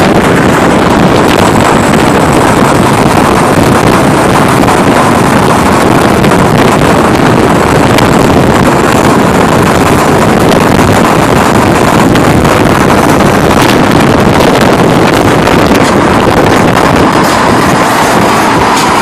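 Loud, steady rush of highway driving noise: wind buffeting the microphone mixed with the tyre and engine noise of vehicles at speed.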